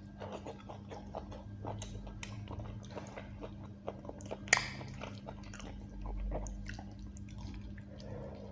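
Close-miked eating of rice and beef curry: a string of short, wet mouth clicks and smacks while chewing, with one sharp, crunchy bite about four and a half seconds in, over a low steady hum.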